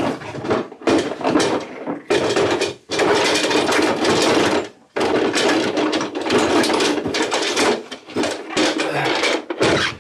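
Rummaging through tools and clamps in a plastic tub, with things clattering and rattling in stretches of a few seconds and short pauses between.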